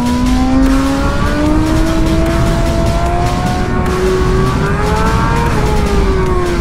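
BMW S1000RR superbike's inline-four engine accelerating hard in one gear, its pitch rising steadily for about five seconds and then falling as the throttle eases. Wind rushes over the microphone beneath it.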